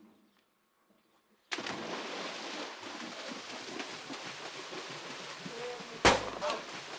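After a second and a half of near silence, a steady hiss cuts in suddenly. About six seconds in there is a single sharp, loud bang, the loudest sound here, followed by a couple of fainter knocks.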